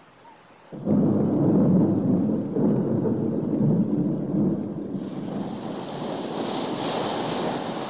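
A thunderclap breaks in suddenly about a second in and carries on as a long, loud rumble of thunder. A higher, steady hiss joins it about two-thirds of the way through.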